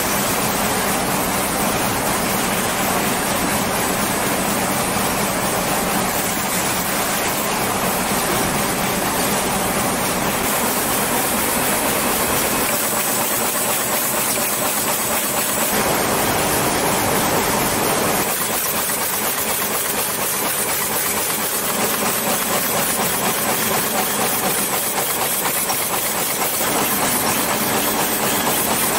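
High-speed horizontal paper cup forming machine and its cup packing machinery running, a steady, dense mechanical din. The mix shifts abruptly several times.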